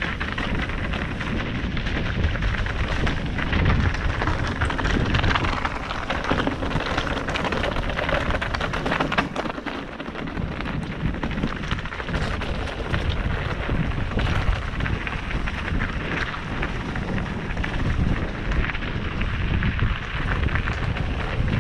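Mountain bike descending a trail of dry leaves and loose gravel: the tyres crunch and the bike rattles with many small knocks over the stones, while wind buffets the camera microphone.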